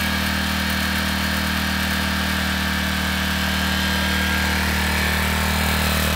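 Generac 4000-watt portable gas generator engine running steadily at one even pitch.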